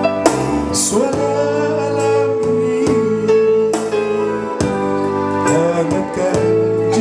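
A man singing a slow song through a handheld microphone and PA, holding long notes over keyboard accompaniment.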